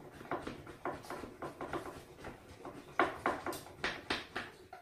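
Hand-pump milk frother: its plunger is pumped rapidly up and down in a glass pitcher, about four strokes a second, whipping warm almond milk into foam. The strokes get louder about three seconds in.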